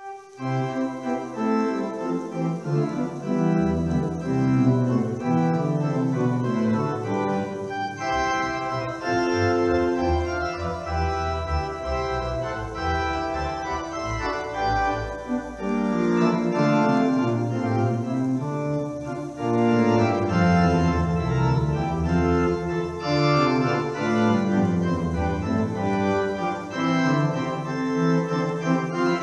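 Church organ playing the closing voluntary in sustained chords over a moving bass line, starting from silence.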